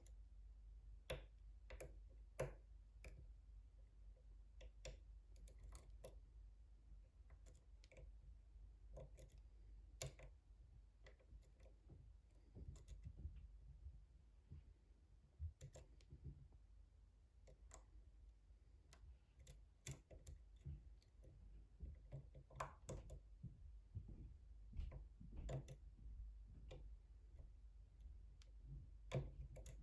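Faint, irregular clicks and ticks of a steel lock pick probing the pins of a brass challenge lock held in a deep false set, with a handful of sharper clicks standing out.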